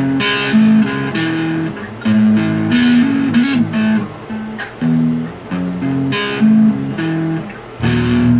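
Electric guitar and bass guitar playing a riff together: a line of short, distinct notes with louder accents here and there.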